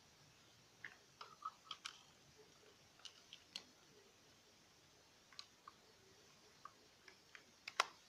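Scattered light plastic clicks and taps from a black dual-port USB wall charger being handled, with a sharper, louder click near the end as a USB voltage meter's plug is pushed into one of its ports.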